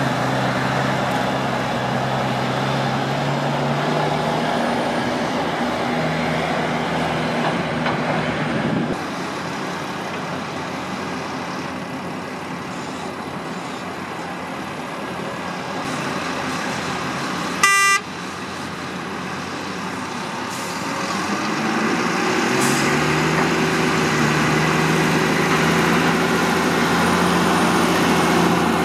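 Heavy diesel engines of Volvo A30E articulated dump trucks and a tracked excavator running while sand is loaded. A short vehicle horn toot sounds about two-thirds of the way through. Near the end a loaded hauler's engine revs up as it pulls away.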